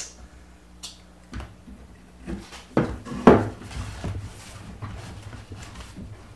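A few light wooden knocks and clunks as a pine 1x4 board is fitted against the legs of a table frame and a glue bottle is set down on the workbench. The loudest knock comes a little past three seconds in.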